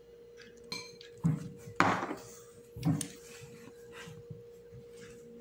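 A few short knocks and handling noises from small food-colouring bottles and a ceramic plate on a kitchen counter, the loudest about two seconds in, over a steady hum.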